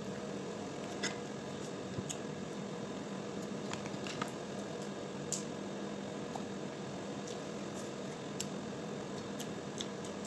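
Crab leg shells cracking and snapping as they are broken open by hand, a scattering of sharp clicks a second or so apart, over a steady background hum.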